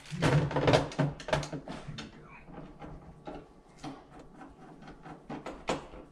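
Irregular clicks, taps and rustles of hands working the plastic wrap and mounting hardware on the back of a flat-screen TV, busiest in the first second and a half.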